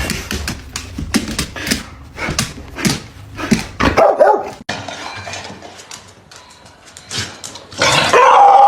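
A dog barking and yipping in short bursts, with a louder, longer cry starting near the end.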